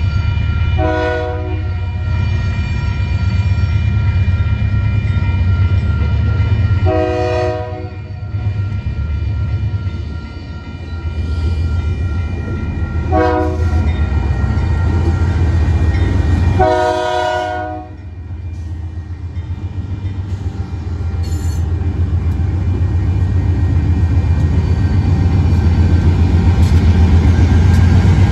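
Arizona Eastern diesel locomotives approaching a grade crossing and sounding the horn four times, each blast about a second long. The engines' low rumble grows louder as they reach the crossing near the end, and the crossing bell rings steadily underneath.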